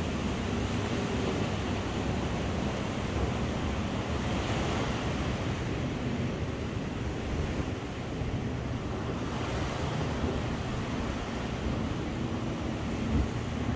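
Ocean surf washing steadily onto the beach, mixed with wind buffeting the microphone. A short bump sounds near the end.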